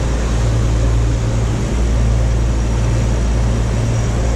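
Cabin cruiser underway: the steady drone of its engines, with the rush of wind and water along the hull.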